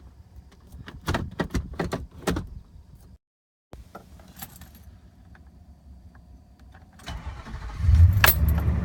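Sharp clicks and key jangling, then near the end a Nissan Titan pickup's engine being started, with a loud low rumble building and carrying on.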